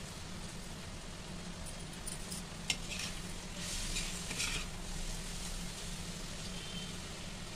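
A steel ladle stirring and scraping sliced onions in a steel kadai, with one sharp metal-on-metal clink a little under three seconds in. Under it the onions sizzle softly and steadily as they fry.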